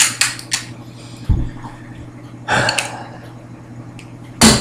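A few sharp clicks from handling a pistol, then a dull thump, a breathy rustle, and a louder burst of handling noise near the end.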